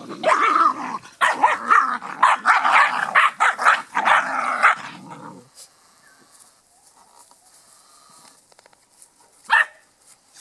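Australian cattle dog and Irish wolfhound puppies growling and yapping in a rough play-fight, in a rapid string of short, pitched noises that stops about halfway through. A single sharp tap near the end.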